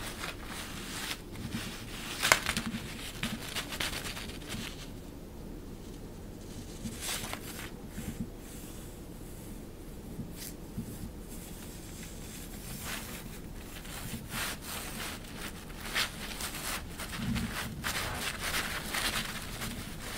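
Thin crinkly fabric rustling in irregular bursts as a cat teaser toy is dragged and pushed over and under it. There is a sharper crackle about two seconds in and a quieter lull in the middle.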